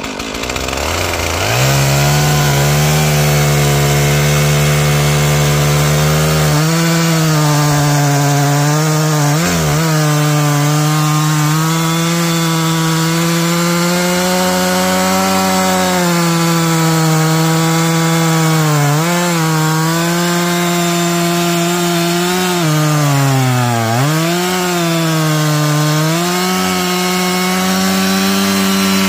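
Stihl MS461 two-stroke chainsaw with a 28-inch bar revving up to full throttle and cutting through green fir logs. The engine note holds high and steady, dipping briefly a few times as the chain loads in the cut.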